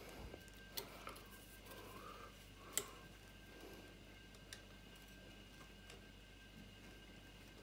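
A few faint clicks and ticks from hands fitting a coolant hose and its clamp to a motorcycle water pump, the sharpest about three seconds in, over a faint steady hum.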